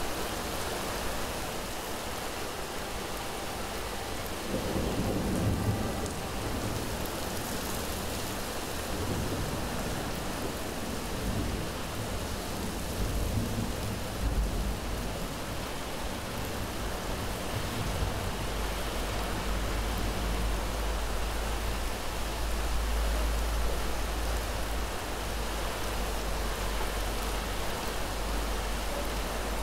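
Heavy rain falling steadily, with thunder rumbling low beneath it: a swell a few seconds in, another around the middle, and a long deep rumble through the last third.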